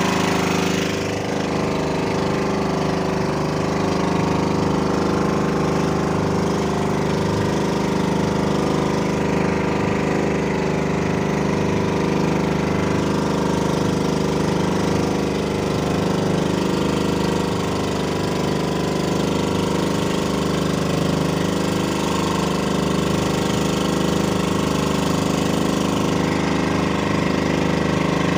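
Fishing boat's engine running steadily at an even speed, with a fast, even pulsing in its low end.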